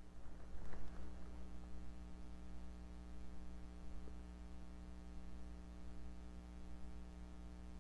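A short stomach gurgle about a second in, over a steady electrical hum.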